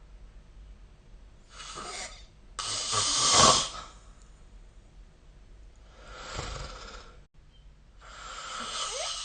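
Person snoring in sleep: a run of noisy, rasping breaths, the loudest about three seconds in.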